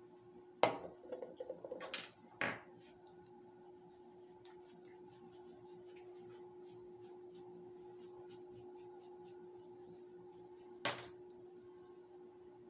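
Small metal nail tools on toenails: a few sharp clicks about half a second in, around two seconds and near eleven seconds, and faint, quick light scraping ticks in between. A steady low hum runs underneath.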